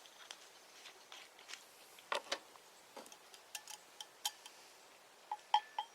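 Scattered light clicks and knocks of a red wine bottle and cup being handled before pouring, with a few short ringing clinks near the end.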